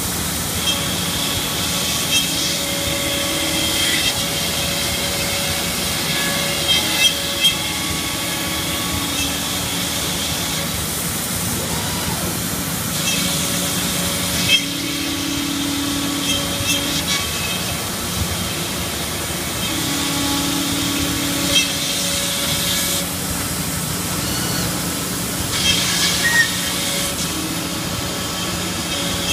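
Industrial machine running with a steady hiss and hum. Its sound changes in a repeating cycle every several seconds, with occasional sharp clicks.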